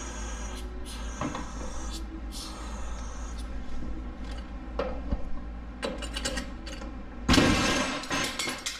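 A compressed front coil spring bursts free of its spring compressor about seven seconds in: one sudden loud bang followed by a second and a half of metal clatter. Before it, a few light clicks over a steady low hum.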